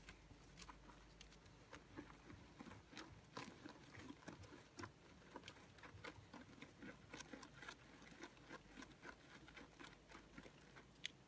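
A puppy's front paws digging in dry, stony dirt: faint, quick, irregular scrapes with soil and small pebbles pattering.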